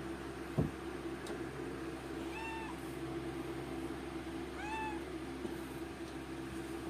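Domestic cat in labor meowing twice, two short calls that rise and fall in pitch, about two seconds apart. A single thump about half a second in.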